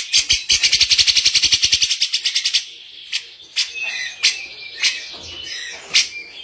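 Bird calls: a fast rattle of sharp clicks, about twelve a second, that stops about two and a half seconds in. Scattered single clicks and short high chirps follow.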